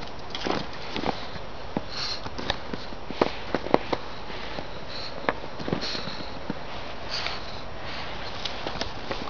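Small dog sniffing at the snow in short, repeated bursts, with scattered light clicks and crunches from paws in the snow.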